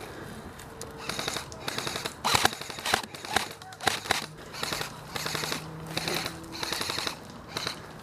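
Airsoft electric rifles firing in repeated short full-auto bursts, each a rapid rattle of shots.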